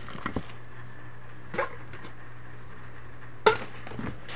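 Groceries being handled in a cardboard box: a few short knocks and clicks of a tin can and other items, the loudest about three and a half seconds in, over a steady low hum.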